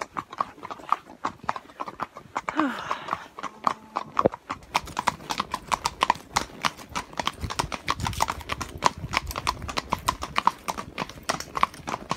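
Hooves of several horses clip-clopping at a walk on a paved country road, including a pack horse loaded with saddlebags. The hoofbeats grow busier about five seconds in.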